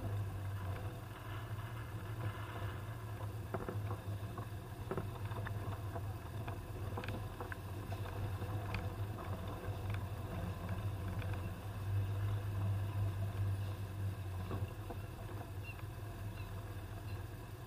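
Toyota Land Cruiser driving: a steady low engine drone that swells for a couple of seconds past the middle, with scattered knocks and rattles from the vehicle on a rough track.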